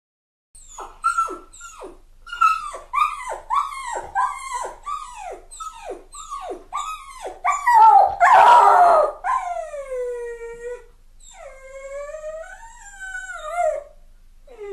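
A dog crying: a quick run of short yelping cries, about two a second, each sliding down in pitch. About eight seconds in comes one loud, rough cry, then two long drawn-out howling whines that waver up and down.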